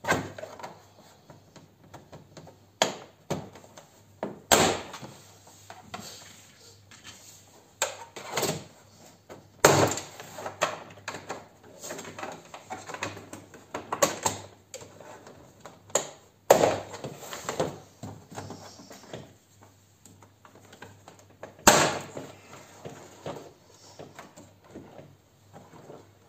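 Plastic retaining clips of a Peugeot 407 door trim panel snapping loose as the panel is prised off the door with a trim lever: sharp snaps a few seconds apart, with plastic rattling and knocking between them.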